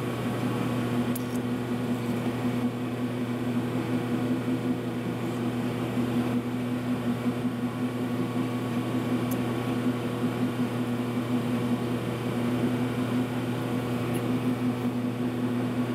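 Monarch engine lathe running at a steady speed, a constant hum from its motor and gearing.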